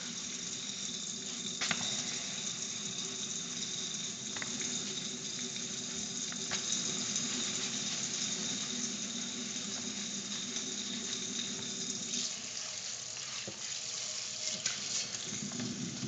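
Kitchen faucet running into a sink, with steel wool scrubbing soapy residue from the inside of a steel frying pan.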